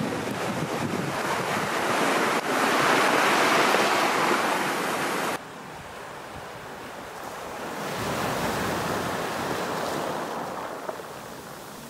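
Ocean surf washing up a sandy, pebbly shore, with wind rushing over the microphone. The sound drops suddenly about five seconds in, then a wave swells in and slowly fades.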